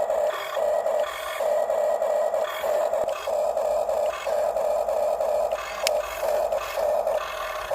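Electric gear motors of a Huina 1550 remote-control excavator whining in short stop-start spurts as its controls are worked, with a sharp click about six seconds in.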